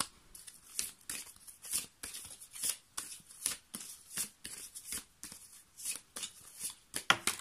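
A deck of oracle cards being shuffled overhand by hand: a steady run of short, soft swishes and slaps, about three a second.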